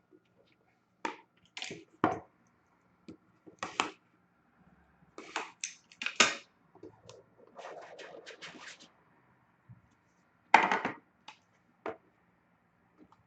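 A sealed hockey trading-card box being opened by hand: its wrapping and cardboard crackle and tear in short irregular bursts, with light clicks and knocks as the contents are handled. There is a longer rustle near the middle, and the loudest tear comes a little after ten seconds in.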